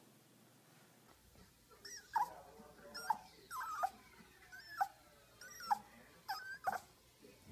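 Small Yorkshire terrier giving a run of about seven short, high whining cries, each sliding down in pitch, roughly one a second.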